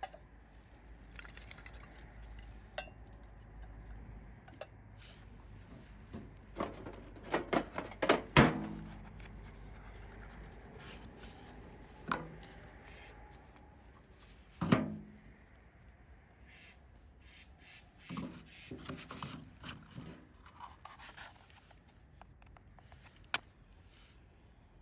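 Scattered knocks, clinks and scrapes of camp gear and cookware being handled, with a quick cluster of loud knocks about eight seconds in.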